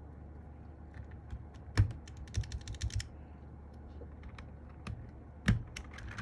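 Plastic clicks and clacks from a Sky87 mechanical keyboard being worked on: one loud clack about two seconds in, a quick run of clicks right after, and another loud clack near the end.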